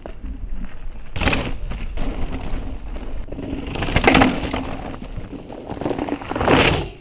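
Mountain bike ridden over a loose, dry dirt trail: tyres rolling over dirt and debris, swelling three times as the bike passes close by, about a second in, near the middle and just before the end.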